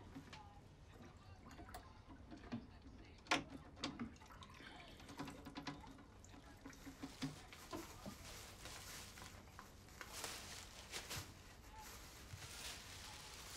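Water dripping and splashing lightly in a glass aquarium as hands work inside it, with scattered small clicks and knocks from handling the tank and its tubing.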